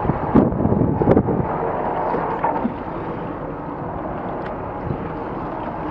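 Choppy lake water sloshing against a patrol boat's hull, with wind noise on the microphone; two sharp knocks in the first second or so, then a steady, slightly quieter wash.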